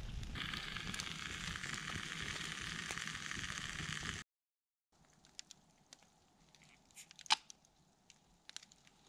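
Ribs sizzling on a grate over a campfire, a steady hiss for about four seconds that cuts off abruptly. After that it is faint, with a few small clicks and one sharp knock about seven seconds in.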